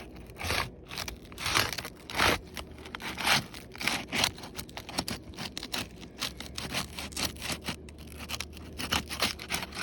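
Thin pry tool worked under an asphalt roof shingle: repeated irregular scraping and tearing as the shingle's sealant bond is broken, enough to tear the shingle's mat.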